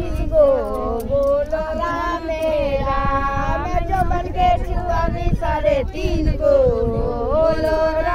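Several women singing a traditional Bhojpuri ritual folk song together, unaccompanied, in high voices with long drawn-out notes. A low rumble of wind or handling noise runs underneath.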